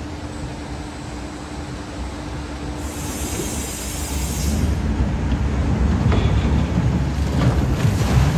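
Log flume ride: water rushing down the drop chute, then the log boat running down it and hitting the pool at the bottom with a big splash near the end, over a steady low rumble from the ride.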